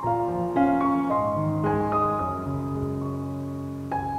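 Soft background piano music: single notes and chords struck one after another and left to ring.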